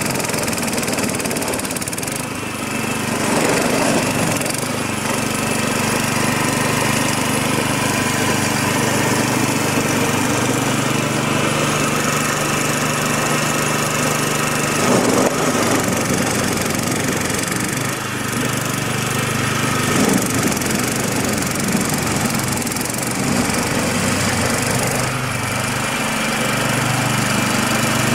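Engine of a MARKO walk-behind tiller running steadily under load, driving its belt-driven snow-blower attachment as it throws snow. A few short bursts of noise rise over the steady engine note.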